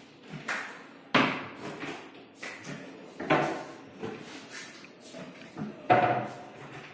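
Overhead wall-cabinet lift-up doors on Ebco furniture hardware being pushed open one after another, with a series of knocks and clicks from the flaps and their fittings; the three loudest knocks come about a second, three seconds and six seconds in.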